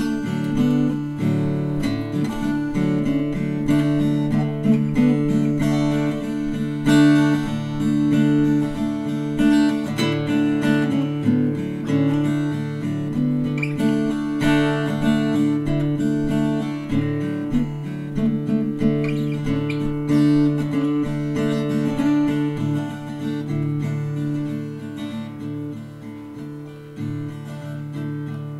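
Background music played on acoustic guitar, strummed and plucked, with no singing. It gets slightly quieter near the end.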